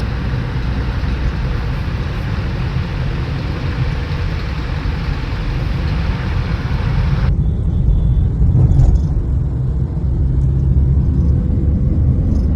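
Car running with a steady low rumble. About seven seconds in, the hiss above it cuts off suddenly while the low rumble carries on.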